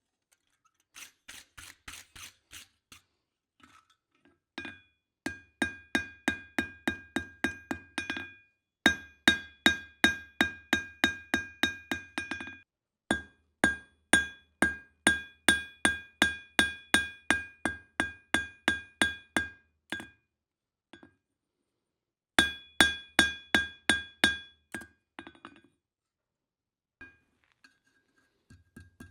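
Hand hammer striking hot steel on an anvil, about three blows a second, each with a bright metallic ring. The blows come in several runs of a few seconds with short pauses between, some lighter taps early on.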